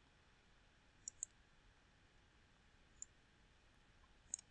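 Computer mouse button clicks against near-silent room tone: a quick double click about a second in, then single clicks near three seconds and just before the end.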